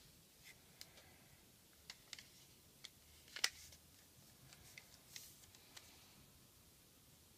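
Faint paper handling: a strip of paper rustling and crackling as it is creased and folded by hand, in scattered soft clicks, the loudest about three and a half seconds in.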